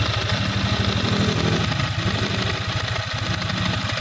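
Yamaha Sniper 155's liquid-cooled single-cylinder engine idling steadily with an even, rapid pulse, running while its cooling system is filled with coolant.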